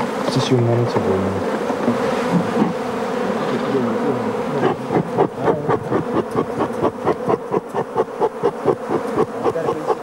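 A mass of honeybees buzzing in a loud, steady hum. About halfway through, a rapid regular pulsing of about three to four beats a second comes in over the buzz.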